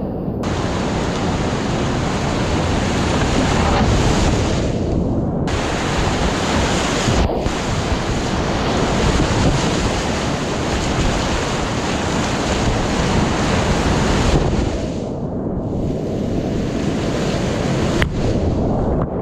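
Whitewater rapids of a steep creek at high water rushing loudly around a kayak, right at the water's surface, with wind noise on the microphone. The sound goes dull for moments several times, and there is a sharp knock near the end.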